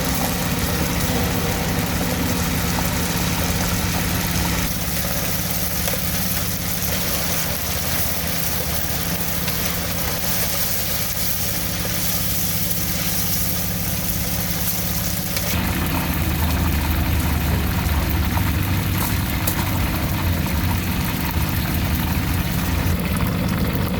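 Street ambience with an engine running steadily at idle under a constant hiss. The mix changes abruptly about five seconds in and again about fifteen seconds in.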